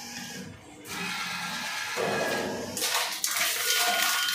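Reverse vending machine taking in a plastic bottle: a steady mechanical whirring rush starts about a second in and grows louder and more rattly near the end as the bottle is carried through the machine.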